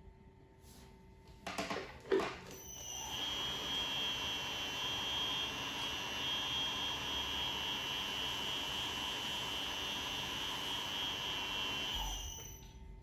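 F.lli Foggiato DC 70 double-face fabric splitting machine: two knocks as it is started, then a steady high-pitched whine for about nine seconds as it runs, opening the double-face cashmere, before it stops with a low thump and winds down near the end.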